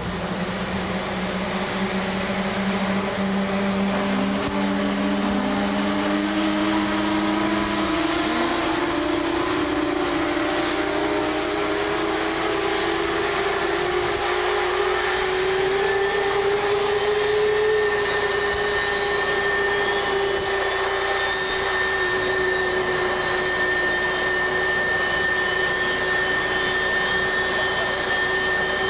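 F-15 fighters' jet engines running on the ground, their whine rising in pitch over the first half and then holding steady, with a higher whine joining about halfway through.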